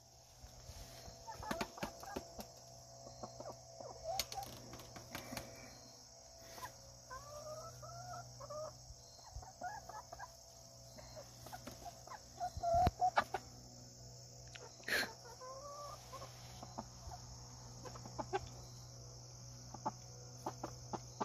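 Chickens clucking and giving short, soft, rising-and-falling calls on and off, with a few sharp taps, over a steady high chirring of insects.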